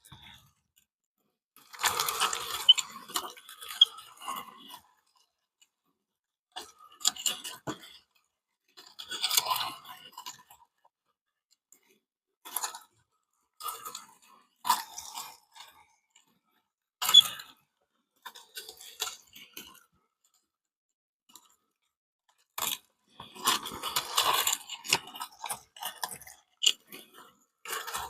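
Soft clay being pressed through a meat grinder: short bursts of crackling, squishing sound, about a dozen of them, with silent pauses between.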